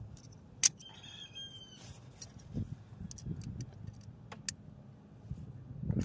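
Metal clinks and taps of a pickup's rear drum-brake hardware being handled: the brake shoe, its springs and the parking-brake lever knocking together as they are worked loose, with one sharp clink about half a second in.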